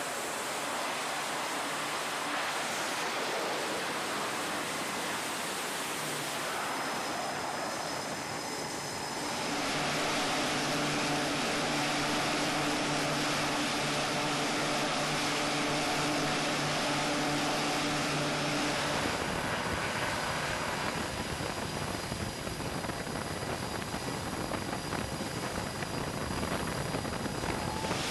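E-2 Hawkeye's twin turboprop engines running, a steady propeller and engine drone. About ten seconds in, a low humming tone becomes prominent and holds for roughly nine seconds.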